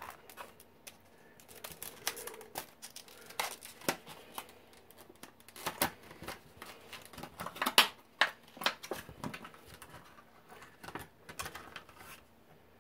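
Faint, irregular light clicks and taps of small plastic items and packaging being handled, with a few sharper clicks among them.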